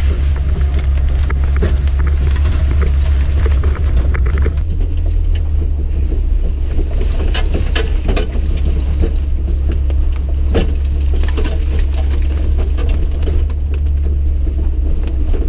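Steady low rumble of a Jeep's engine and tyres heard inside the cabin while driving, with scattered short clicks and rattles over it.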